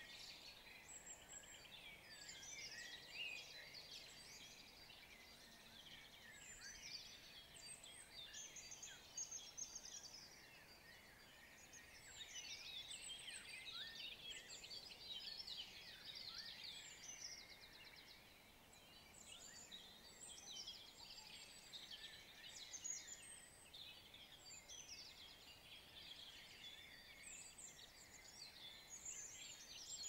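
Faint chorus of several songbirds, many short overlapping chirps, trills and quick falling notes.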